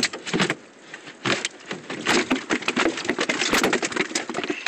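Dense, irregular crackling and knocking with splashing water close to the microphone, as the boat is worked off a shallow oyster bar.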